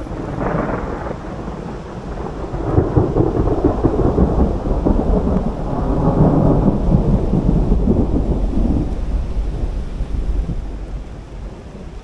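A long roll of thunder. It breaks in suddenly, swells to its loudest around the middle and rumbles away over the last few seconds.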